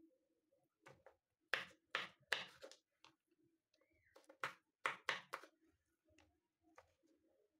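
Kitchen knife and hands on red onion on a bamboo cutting board: a scatter of sharp taps and knocks of the blade and onion against the wood, clustered in the middle, with one more near the end.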